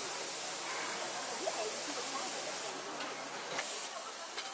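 Steady, even hiss of factory ambience on a battery-cell assembly line.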